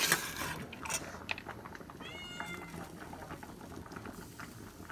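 A cat meows once, a short high call about two seconds in. Before it, a metal spatula scrapes and knocks against the iron wok.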